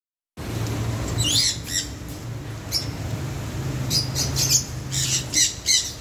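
Alexandrine parakeets giving short, harsh squawks in several bouts, over a steady low hum.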